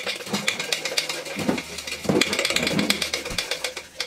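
A spoon clicking and scraping quickly against a mug as chocolate powder is spooned and stirred, with a few dull knocks in the middle.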